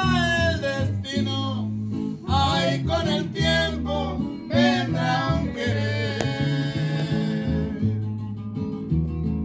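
A Spanish-language song with guitars and a walking bass line. A voice sings for the first six seconds or so, ending on a long held note, then the guitars carry on alone.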